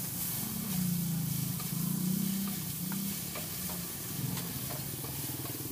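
Noodles and an egg sizzling on a large flat steel wok while a spatula scrapes and taps against the metal, over a low hum.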